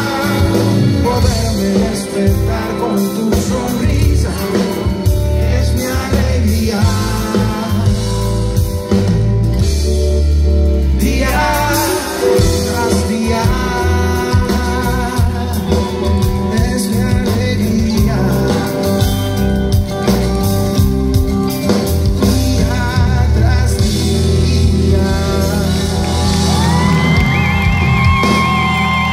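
Live pop band playing amplified on stage, with electric guitars, bass, drums and keyboards under a male lead vocal, heard from among the audience. A long wavering high note is held near the end.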